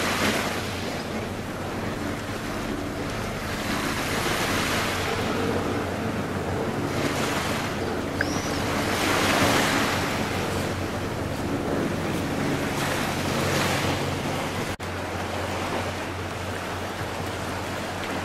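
Small sea waves washing onto a rocky shore, the surf swelling and falling back every few seconds, with some wind on the microphone.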